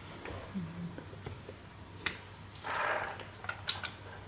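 Handling noises as a cable is plugged into a small display driver board and a cardboard-framed screen is lifted: a few sharp clicks, one near the middle and one near the end, and a brief scraping rustle between them, over a low steady hum.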